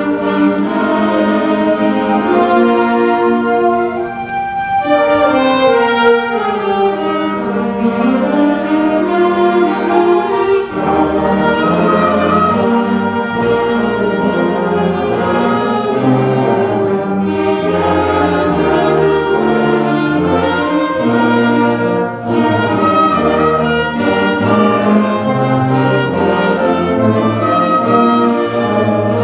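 Orchestral music with bowed strings playing sustained and moving lines; a heavier bass part comes in about ten seconds in.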